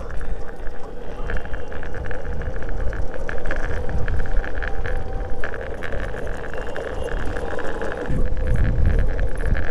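Street traffic noise: cars running, with a heavy low rumble and a steady hum.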